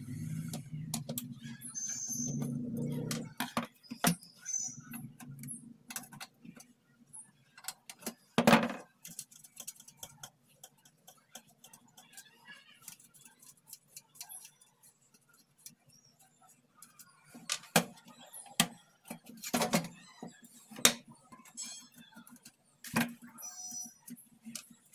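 Hand work on an opened LED monitor's sheet-metal chassis and power-supply board, with a screwdriver and bare hands: scattered clicks, scrapes and metal knocks. The loudest knock comes about eight and a half seconds in, and there is a cluster of knocks near the end.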